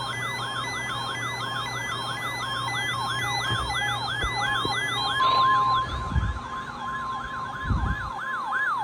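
Weather-alert receiver's siren-like alarm, a tone sweeping up and down about three times a second, set off by the NOAA Weather Radio test. About five seconds in, the broadcast's steady 1050 Hz warning alarm tone joins it. A couple of low thumps come near the end.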